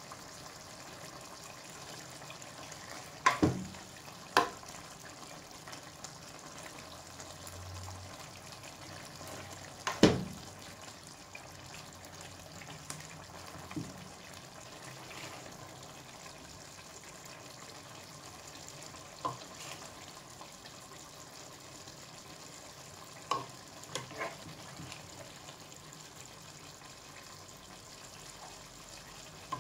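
Pan of igado, a pork and liver stew, sizzling steadily and faintly while being stirred. A metal utensil knocks against the pan about eight times, loudest about ten seconds in.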